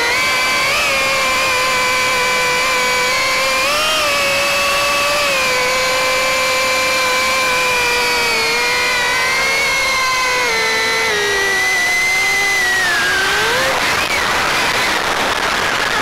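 Small drone's electric motors and propellers whining steadily under power as it climbs, the pitch wavering slightly and sagging slowly in the second half. About two seconds before the end the whine swings up sharply and then breaks off into a rushing noise.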